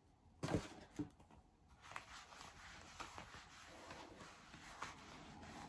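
Tanning mitt rubbing self-tan foam over the skin of an arm: faint, soft rubbing, with two light knocks about half a second and a second in.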